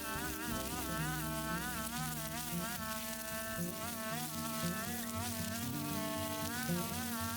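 Husqvarna 120e Mark II two-stroke chainsaw running at high revs while cutting wood, its pitch wavering up and down every half second or so under the load.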